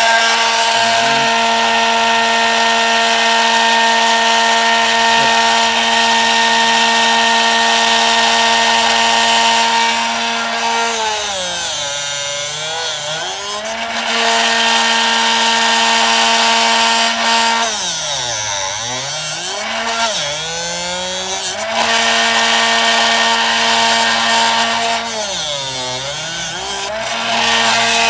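Drill Doctor 500X drill-bit sharpener running and grinding a split (self-tapping) point onto a twist drill bit: a steady motor hum with a grinding hiss. The motor's pitch dips and recovers three times, about 11, 18 and 25 seconds in.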